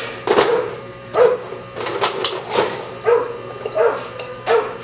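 A dog barking repeatedly, about eight short barks coming every half second to second.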